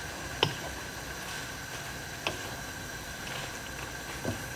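Wooden spoon stirring spinach in a frying pan, knocking against the pan three times, over a steady hiss from the simmering pan.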